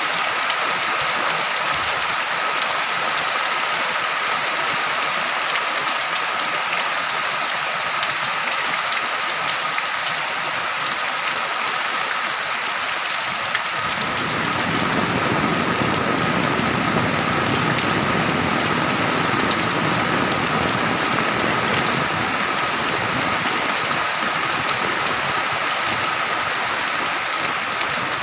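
Heavy rain falling steadily, a dense even hiss. About halfway through, a deeper low rumble joins in and the sound grows a little fuller.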